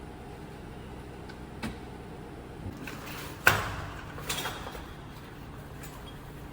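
A few short knocks or bangs, like gear or a door being handled, the loudest just past halfway, over a steady background hiss.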